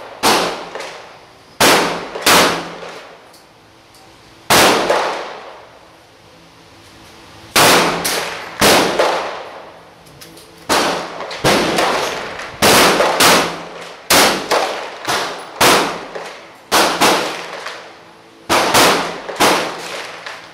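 AR-15 rifle shots at an indoor shooting range, about twenty in irregular quick succession, some in pairs and triplets, each ringing out in the room.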